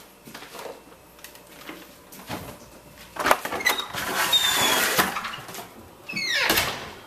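Doors being opened and gone through: scattered wooden knocks and clicks, a loud rustling stretch in the middle with brief squeaks, and a short creaking squeal near the end, such as a screen door's hinge or spring.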